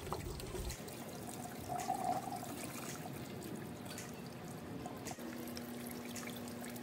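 Water trickling and splashing inside a PVC hydroponic grow tower, fed by its submersible pump, with faint plastic clicks as net cups are pushed into the tower's planting holes.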